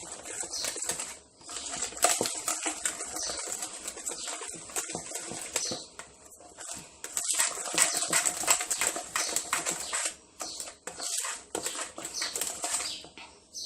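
Batter being mixed in a bowl after the flour goes in: a run of irregular scraping and swishing strokes of a utensil against the bowl, with brief pauses.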